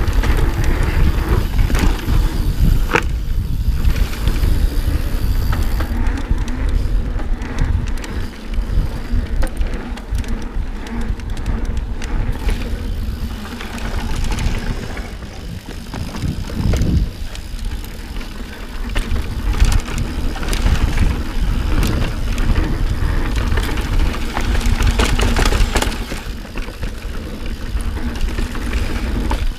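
Santa Cruz Hightower mountain bike riding fast down a dirt singletrack: constant wind rumble on the camera microphone over the hiss of tyres on dirt, with frequent knocks and rattles from the bike over bumps.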